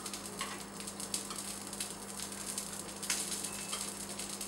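A spoon stirring tomato raita in a ceramic bowl: wet mixing of yogurt and tomato with a few light clicks and scrapes of the spoon against the bowl, over a low steady hum.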